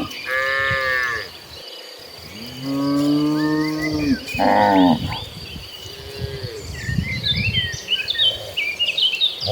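Cattle mooing: about four separate moos from the herd, the second a long drawn-out call, the last one fainter. Birds chirp in the last two seconds.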